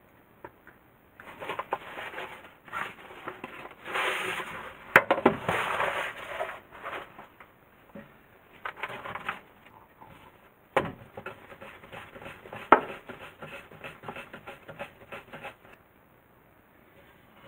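Baking parchment rustling and crinkling as it is handled and peeled away from bread dough balls on a wooden pastry board, with a few sharp knocks from the tray and dough scraper against the board.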